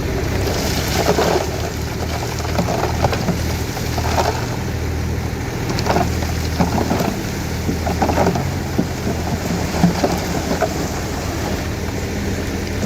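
Dump truck engine running steadily, with irregular rattling and crunching bursts over it.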